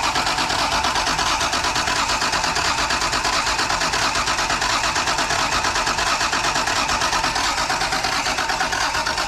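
Toyota Celica Supra Mk2's straight-six being cranked on the starter motor, a steady fast rhythm of compression pulses that keeps going without the engine catching.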